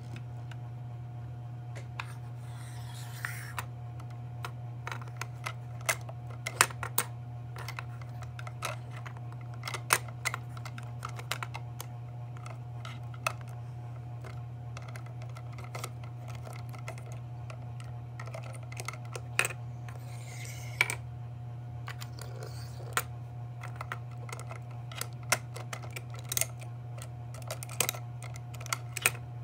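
Irregular small clicks and taps from the hand-operated parts of a 1:34 scale model rear-loader garbage truck being worked by hand, over a steady low hum, with a couple of brief rustles.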